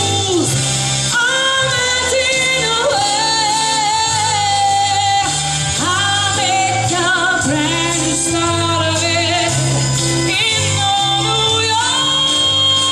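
A woman singing live into a microphone over instrumental accompaniment, holding long notes with a wavering vibrato.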